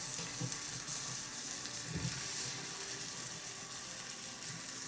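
Hormone nabe with champon noodles sizzling steadily in a mini iron pot. The liquid has cooked down so far that the bottom is scorching.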